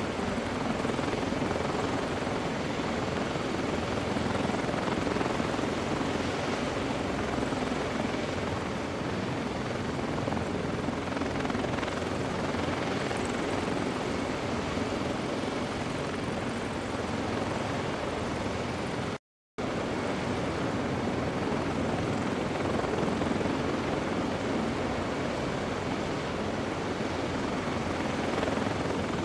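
CH-53E Super Stallion helicopters running on the ground, a steady rush of turbine and rotor noise. The sound cuts out for an instant about two-thirds of the way through.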